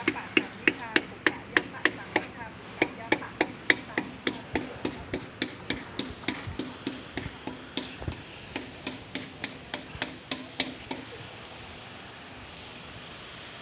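A struck metal object ringing under a fast, steady series of blows, about three a second. Each blow leaves a low ringing tone that carries on between strikes. The blows stop about eleven seconds in.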